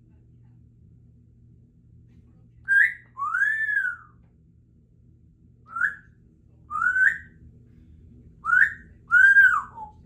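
Congo African grey parrot whistling, three short phrases each made of a quick upward note followed by a longer gliding note; the first and last of these longer notes rise and then fall away.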